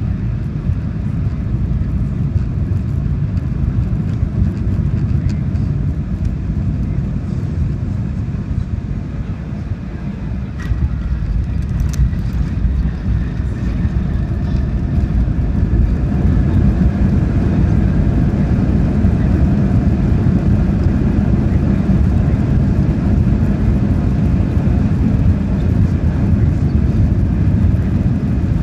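Cabin noise of a Boeing 737-900ER landing, heard from a window seat: a steady low rumble of engines and airflow. A short knock about ten seconds in marks touchdown. From about sixteen seconds a louder, fuller rush follows as reverse thrust and braking slow the rollout.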